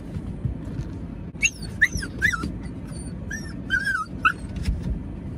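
Small white dog left alone in a car, whining and whimpering at being told to stay: a run of short, high, wavering whines starting about a second and a half in and lasting about three seconds.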